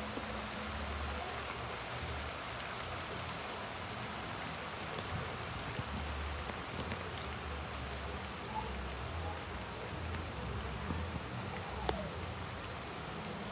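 Steady rain falling on the yard and its plants, an even hiss with a few small ticks.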